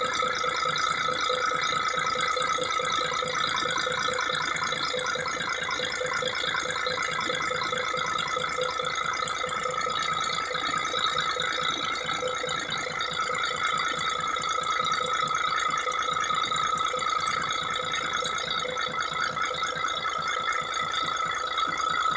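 Mercedes-Benz Actros 1844 diesel engine running steadily with a fast, even clatter. The engine is running again after a hard-starting fault caused by a missing valve in the fuel filter.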